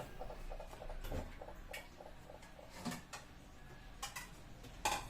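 Scattered light clicks and knocks of food containers and packaging being handled, a handful of them, the loudest near the end.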